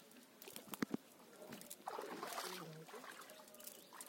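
Cast net being gathered and handled: a couple of light clicks just under a second in, then about a second of rustling around the middle.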